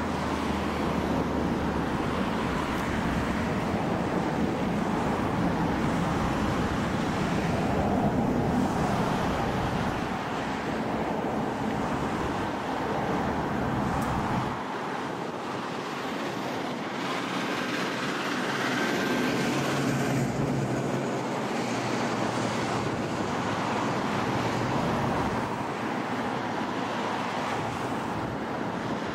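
Boeing 737 MAX airliner's CFM LEAP-1B turbofans running at low taxi power as it lines up on the runway: a steady jet rumble and hiss, with wind noise on the microphone.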